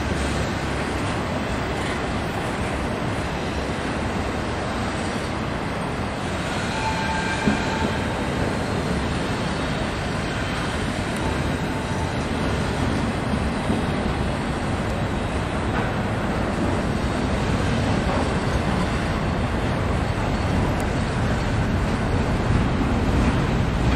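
Double-stack intermodal container cars of two freight trains rolling past on adjacent tracks: a steady rumble of steel wheels on rail. About seven seconds in, a faint high squeal and a single sharp knock stand out.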